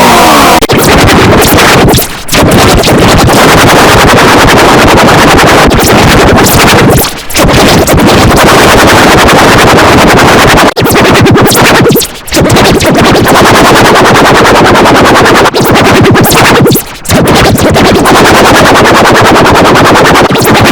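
Loud, harsh, heavily distorted and clipped electronic audio: a dense synth-like wall of noise that drops out briefly about every five seconds.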